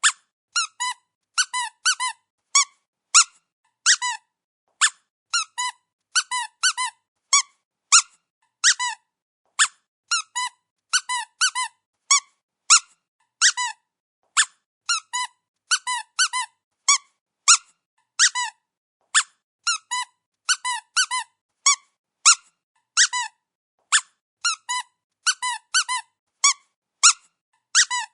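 Dog squeaky toy squeezed over and over: short, high squeaks, some single and some in quick runs of two to four, with brief silences between.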